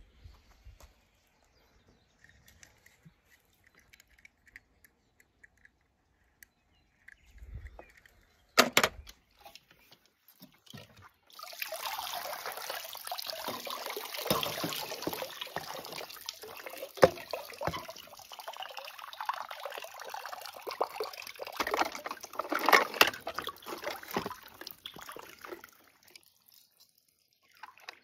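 Water pouring and splashing for about fifteen seconds, starting about eleven seconds in, with clicks and knocks mixed through it. Before that it is mostly quiet apart from a single sharp knock.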